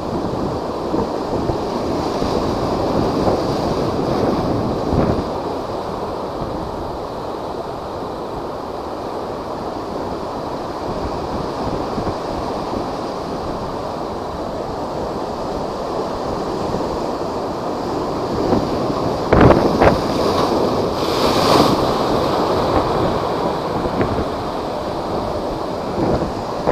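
Typhoon-driven high waves surging and breaking, a steady heavy roar of surf with strong wind buffeting the microphone. A few sharper, louder crashes come about three-quarters of the way through.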